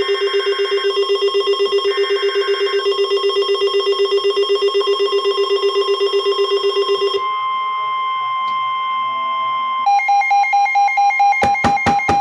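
Weather radio emergency alert tones. A rapidly pulsing electronic alarm, about eight beeps a second, sounds over short bursts of coded alert data, then gives way about seven seconds in to a steady single warning tone. Near the end a second beeping alert tone with sharp clicks begins, ahead of a broadcast severe thunderstorm warning.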